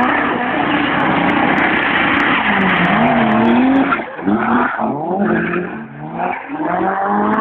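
Drift cars sliding with tyres screeching loudly for about the first four seconds, then engines revving up and down as the throttle is blipped through the slide. Heard through an old phone's microphone, dull and without top end.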